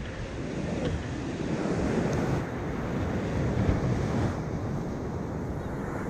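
Steady wash of sea surf on a sandy beach, with wind rumbling on the microphone.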